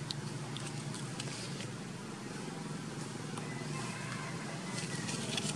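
A steady low engine drone running in the background, with faint scattered clicks over it.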